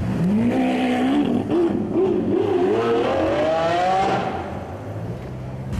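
Lamborghini Aventador's V12 accelerating hard, its pitch climbing steadily for about four seconds before the revs fall away. A steady low engine hum runs underneath.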